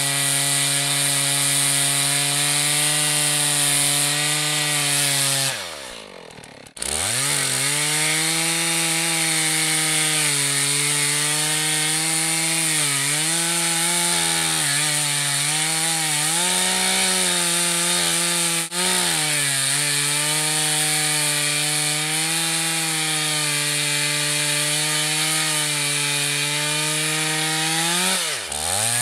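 Stihl 461 two-stroke chainsaw running at full throttle while cutting through a large log, its pitch sagging and recovering as the chain works through the wood. About six seconds in the engine winds down and briefly drops out before coming back up to speed, and near the end it winds down again.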